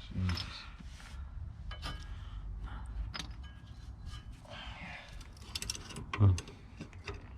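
Light metallic clinking and rattling of hand tools and brake parts being handled during rear brake work, with short vocal sounds just after the start and about six seconds in.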